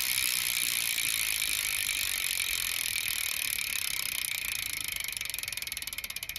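Cinema VX2 BMX cassette hub freewheeling as the rear wheel coasts: its pawls click so fast they run together into a buzz, which slowly fades and, near the end, breaks up into separate clicks that slow down as the wheel loses speed.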